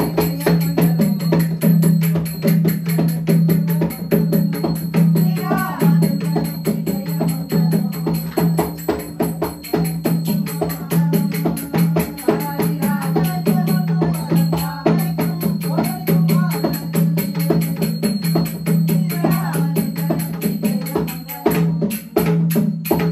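Rapid, steady drumming on a two-headed barrel drum of the mridangam kind, over a continuous low drone, as accompaniment to a Tamil leather shadow-puppet play.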